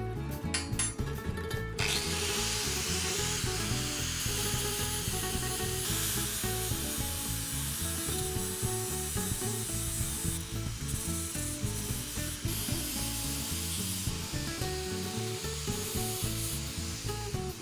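Power tool grinding against a workpiece: a steady, noisy rasp that starts about two seconds in and varies in strength, over background music.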